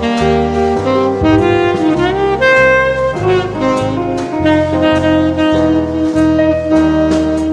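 Background jazz music: a saxophone playing a melody over a walking bass line with light drums.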